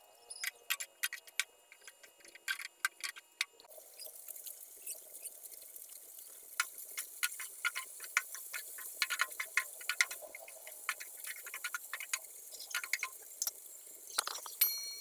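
Tofu cubes being stirred in a non-stick frying pan with a spatula, giving irregular clicks and scrapes against the pan, with a high sizzle of frying that comes in about four seconds in. A brief louder rush near the end.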